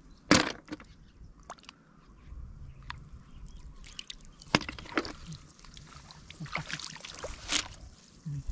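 Hands sloshing and splashing in shallow muddy water, feeling for snails, with scattered small clicks and one sharp knock just after the start. The splashing is busiest in the second half.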